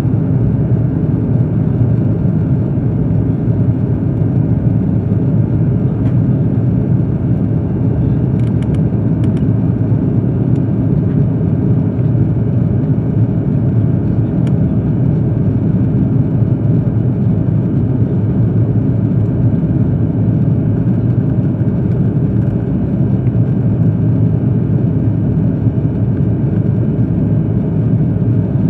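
Steady low rumble of an Airbus A330-200 heard from inside the passenger cabin: engine and airflow noise, unchanging in level.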